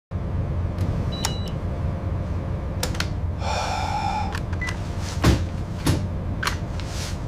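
Steady low engine rumble with scattered metallic clanks and knocks, and a short harsh squeal about halfway through. The loudest are two heavy thuds a little past five and six seconds.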